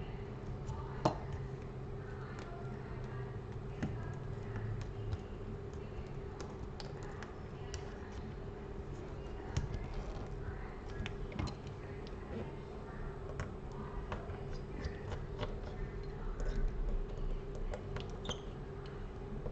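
Light, irregular clicks and taps of a precision screwdriver and small screws against a smartphone's internal frame during screw removal, over a steady low hum.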